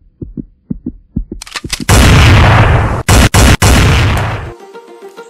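Logo-reveal sound effect: low thumps coming faster and faster over the first two seconds, building into a loud, noisy boom with a deep rumble that cuts out twice briefly and dies away about four and a half seconds in. Plucked-string music starts near the end.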